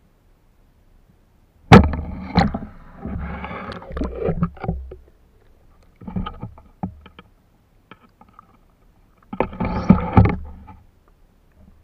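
Shallow seawater splashing and sloshing in irregular bursts: a sharp splash about two seconds in, a few seconds of sloshing, shorter splashes around six seconds, and another strong splash near ten seconds.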